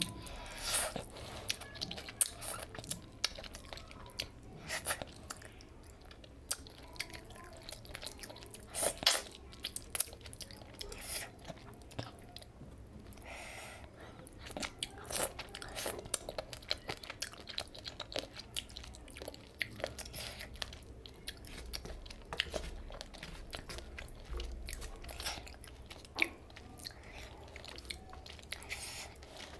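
A person eating fish curry and rice by hand, close up: chewing and crunching with many sharp, irregular mouth clicks and smacks.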